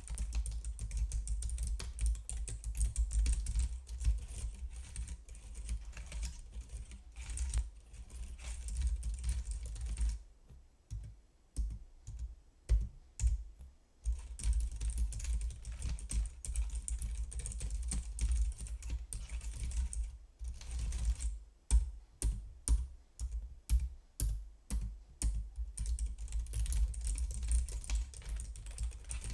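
Typing on a computer keyboard: quick runs of keystrokes, breaking into slower, single key presses about a third of the way in and again past the middle.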